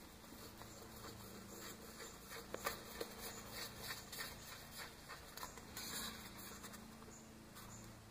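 Faint scratching and light clicks of hands handling a foam model airplane and small parts on a wooden workbench, with a sharper tick about two and a half seconds in.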